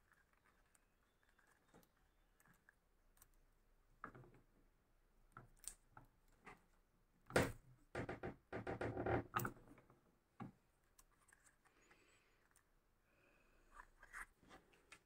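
Hand-operated leather press setting a rivet in a leather strap: scattered light metal clicks, one sharp metal clack about seven seconds in as the ram comes down, then about two seconds of quick small knocks and rattles.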